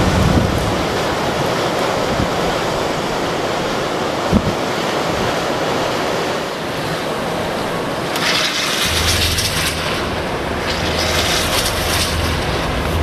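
Blizzard wind rushing steadily and buffeting the microphone with a low rumble. Gusts swell into a louder hiss about eight seconds in and again near the end. There is a single short thump about four seconds in.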